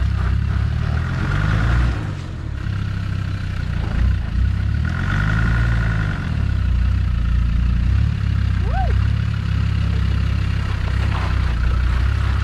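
Land Rover Discovery 2 engine pulling at low revs as the 4x4 crawls up a steep, rutted track, the engine note rising and falling twice with the throttle.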